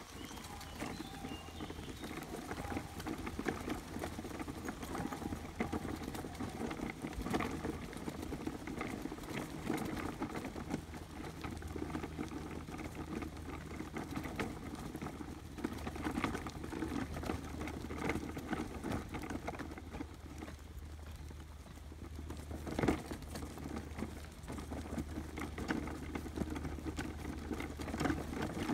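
Footsteps and small dogs' paws pattering and scuffing on a leaf-strewn dirt path, with a steady low hum underneath and a sharper knock about three-quarters of the way through.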